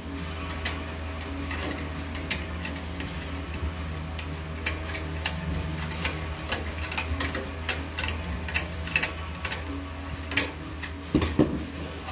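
Galvanized steel duct stack being cut with a hand cutting tool: an irregular string of sharp metallic clicks as the blades bite the sheet metal, over a low steady hum. Near the end the sheet-metal piece clatters as it is lifted and moved.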